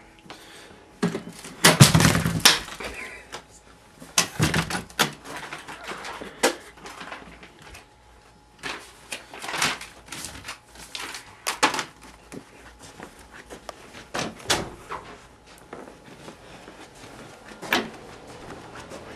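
Irregular knocks, thumps and clicks in a small room, the loudest cluster about two seconds in, with scattered smaller knocks after.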